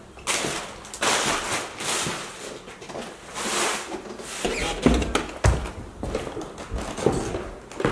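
Footsteps and scuffing as someone walks through a room littered with trash, with rustling in the first half and a few dull thumps about halfway through.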